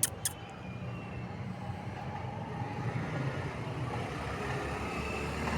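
A motor vehicle engine running steadily, slowly growing louder, with two sharp clicks right at the start.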